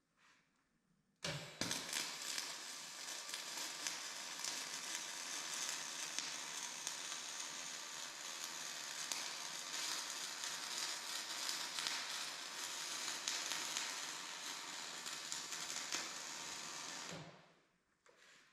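Stick-welding arc struck about a second in, crackling and sizzling steadily for about 16 seconds as a weld bead is laid on a cracked steel arm, then broken off near the end.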